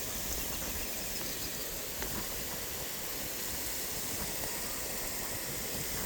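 Steady, even background hiss with a few faint ticks.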